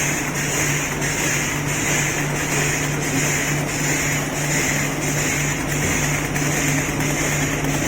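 Automatic cutlery packing machine running at speed: a steady motor hum with a rhythmic hissing, whirring pulse about twice a second as it cycles through packs.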